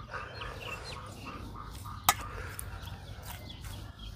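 Birds calling in short chirps over a steady low hum, with one sharp click about two seconds in.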